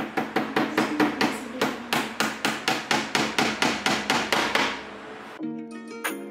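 Claw hammer tapping small nails through a thin hardboard back panel into a furniture frame, with quick, even strikes about five a second. The strikes stop a little before the end, and background music comes in.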